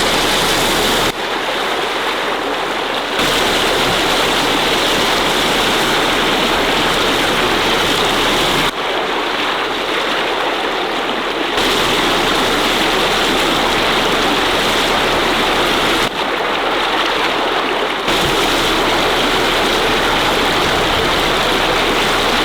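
Water gushing out of a broken residential water main: a loud, steady rush of spraying and splashing water, changing abruptly in tone several times.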